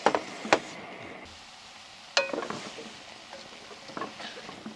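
A cooking utensil clinking and scraping in a frying pan as food sizzles, with one sharper metallic clink that rings briefly about two seconds in.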